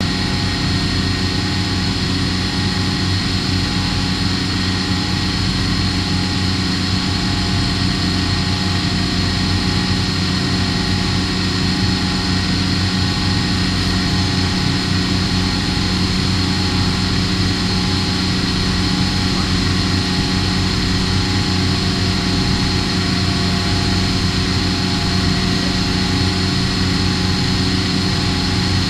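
Machining centre running a honing operation on a cast iron cylinder liner: a steady, unchanging machine hum with a constant high whine over a hiss.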